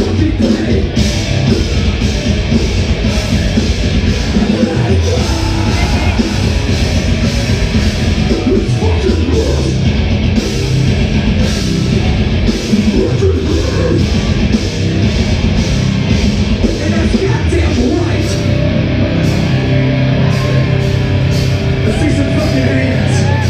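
Live rock band playing loud, heavy music with drums and guitars, the drum hits keeping a steady beat.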